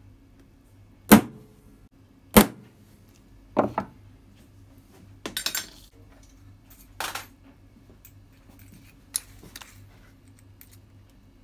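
Claw hammer striking a centre punch into a metal gland plate to mark holes for drilling: three sharp metallic taps about a second and a quarter apart, the third softer. Two longer clattering sounds follow, then a few faint clicks.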